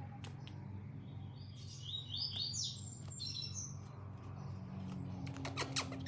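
Green-winged saltator (trinca-ferro) giving a short run of quick high chirping notes, with a few sharp clicks near the end.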